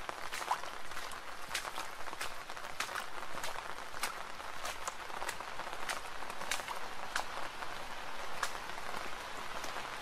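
Steady rain: an even hiss with frequent sharp, irregular drop hits.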